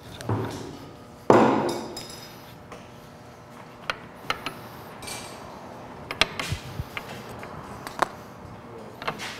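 Metal-on-metal clanks and clicks from hand tools and steel ball screw parts being worked by hand. One loud ringing knock comes about a second in, and light clicks are scattered after it.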